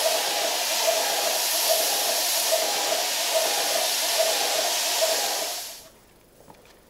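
Airless spray gun spraying ready-mix filler: a loud, steady hiss with a low pulse about once a second, fading out near the end.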